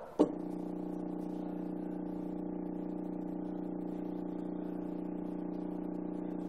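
Stepper motor driven by a CNC driver, starting with a sharp click and then running at a constant speed with a steady, even-pitched hum.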